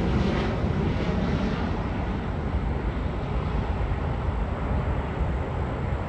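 Jet airliner engine noise, a steady rumble that slowly fades.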